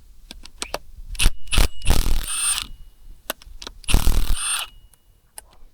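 Hand tools and metal parts of an air compressor being worked on: a string of sharp metal clicks and knocks, with two longer scraping, rattling bursts about two seconds in and again about four seconds in.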